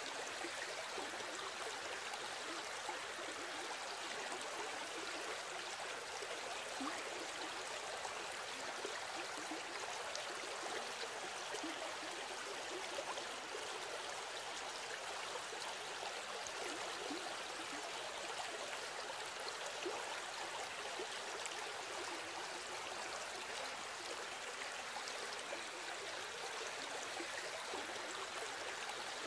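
A stream of water flowing steadily, an even noise with no change in level.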